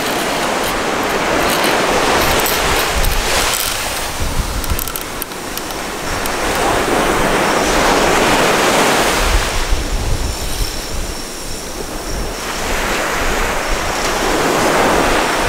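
Ocean surf breaking and washing up a sandy beach, the noise swelling and easing every few seconds, with wind buffeting the microphone.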